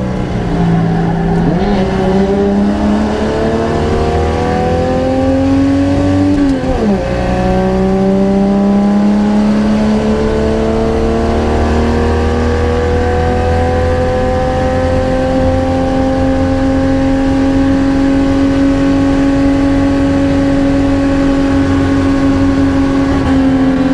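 Holden HQ race car's six-cylinder engine heard from on board under hard acceleration: it shifts up twice in the first seven seconds, then pulls steadily in a high gear, its pitch climbing slowly down a long straight.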